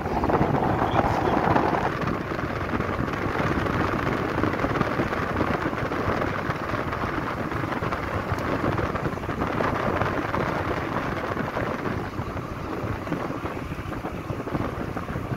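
Steady rush of wind and road noise from a car driving along at speed, heard from the passenger seat; a little louder for the first couple of seconds.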